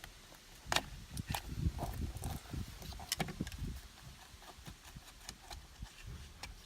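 Hands working plastic steering-wheel button switches loose: a string of sharp plastic clicks and knocks with soft handling thumps, busiest in the first four seconds.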